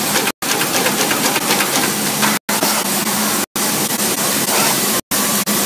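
CNC brush tufting machine running: a rapid, continuous mechanical clatter over a steady hum. The sound drops out for an instant several times.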